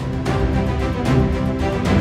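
Background music with held chords and a steady beat.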